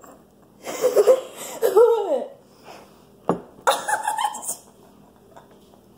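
Two bursts of girls giggling and laughing, with a single sharp click between them.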